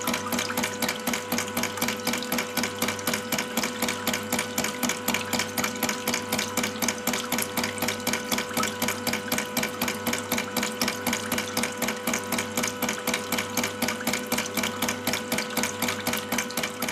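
Model hydraulic ram pump beating: its waste valve, made from a Europa brass check valve, clacks open and shut in a rapid, even rhythm several times a second, each beat driving water up into the air chamber.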